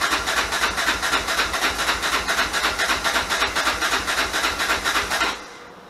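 Yamaha Raptor 660 ATV's single-cylinder four-stroke engine, rebuilt to 686 cc, spinning with rapid, even pulses and a hissy rasp during the first start attempt after the rebuild. It stops about five seconds in.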